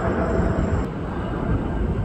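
Jet airliner's engines rumbling loudly as it passes on landing approach, with a faint steady whine over the rumble that cuts off suddenly under a second in.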